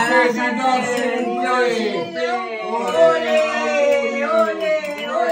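Several voices singing together, with long held notes.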